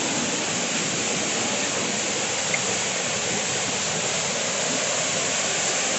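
Waterfall rushing steadily, an even wash of falling water. The falls are running with strong force after the previous day's rain.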